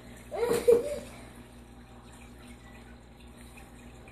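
Aquarium water trickling steadily over a low, even hum, with one brief, loud pitched sound about half a second in.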